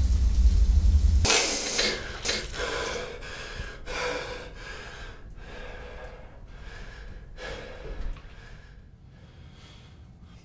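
A low rumble cuts off abruptly about a second in. Then a man gasps and breathes hard, about two breaths a second, the breaths fading over several seconds.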